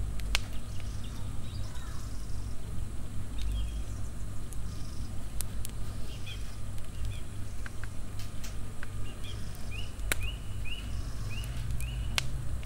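Knife peeling and slicing an onion by hand over a wooden stump block, with scattered sharp clicks of the blade, over a low steady rumble. Near the end, a run of about five short rising chirps.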